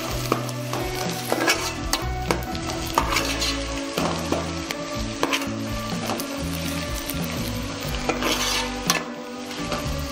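A metal ladle stirring and scraping onions and green chillies frying in oil in a metal pot, with the oil sizzling and the ladle clinking against the pot again and again.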